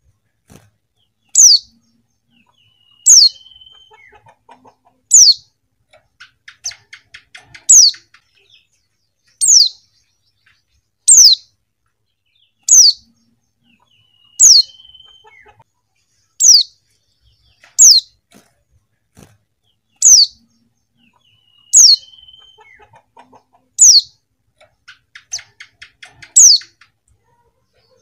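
Female white-eye (pleci) calling: a short, very high note slurring downward, repeated about every two seconds. Faint rapid twittering comes between the calls twice.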